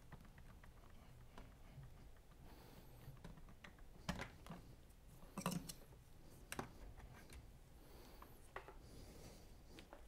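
Faint, scattered clicks and knocks of hands working at the back of an iMac and its power cable, about five of them spread out, the clearest about four and five and a half seconds in.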